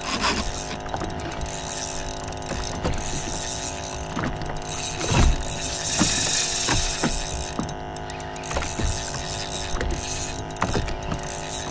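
Fishing reel ticking with a fast ratcheting click as line moves through it, over a steady hum.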